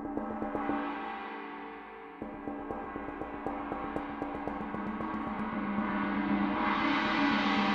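Istanbul Mehmet Xperience X-Cast 22-inch China cymbal rolled with soft felt mallets: rapid, even strokes build a sustained ringing wash. It eases briefly about two seconds in, then swells steadily louder and brighter.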